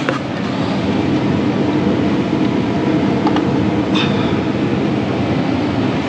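Gas furnace running in heat mode, burners firing and blower moving air: a steady low hum, with a couple of faint ticks around the middle.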